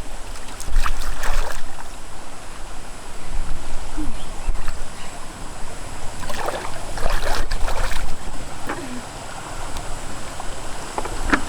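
Pond water splashing and sloshing in bursts, about a second in and again from about six to eight seconds in, with a few short falling squeaks between.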